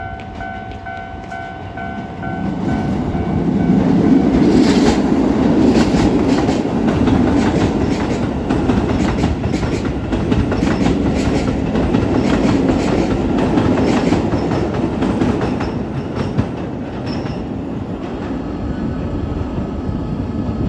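Keisei 3000 series commuter train passing over a level crossing, its wheels clattering rhythmically over the rail joints; it builds up about two to four seconds in, is loudest for the next ten seconds or so, and eases off near the end. A Japanese level-crossing warning bell is ringing at the start before the train's noise drowns it out.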